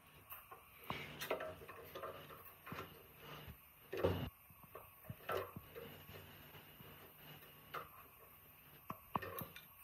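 Steel pipe wrench clicking, knocking and scraping on a rusted pipe fitting in an old air compressor's cylinder head as it is turned and re-gripped. The knocks are irregular, with the loudest about four seconds in.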